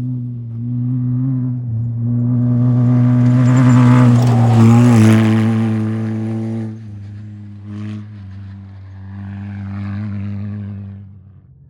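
Off-road race vehicle's engine running hard at a steady pitch as it passes, getting louder to a peak about four to five seconds in with a rush of tyre and gravel noise, then fading away and dropping off near the end.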